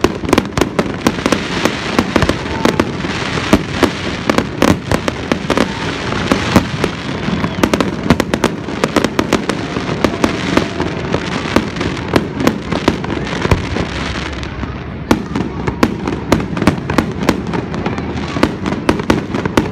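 Aerial fireworks going off in quick succession: many sharp bangs over a continuous crackle. The crackle is dense for most of the stretch and thins about three-quarters of the way through, leaving more separate bangs.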